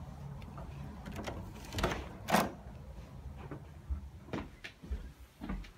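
A door being unlatched and opened: a few separate clicks and knocks, the loudest about two and a half seconds in, over a faint low hum.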